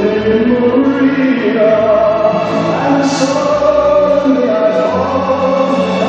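Choral music: a choir singing sustained chords.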